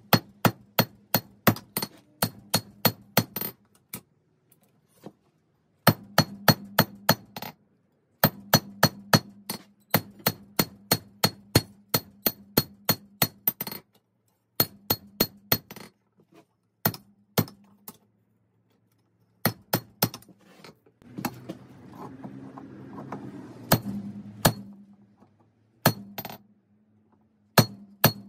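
Hammer blows on hot 5160 spring steel over an anvil: quick ringing strikes in runs of about three a second, broken by short pauses. A low steady hum sits underneath.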